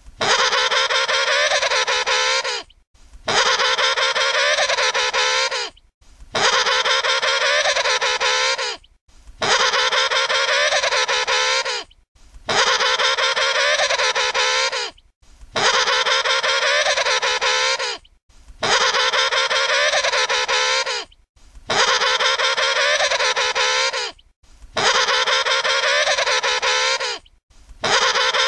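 Emperor penguin trumpeting call, a wavering, warbling pitched call about two and a half seconds long, repeated identically about every three seconds as a loop, ten times.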